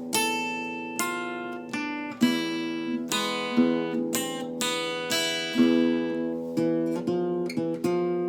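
Solo acoustic guitar playing an enka melody, plucked notes and strummed chords, each struck sharply and left to ring out.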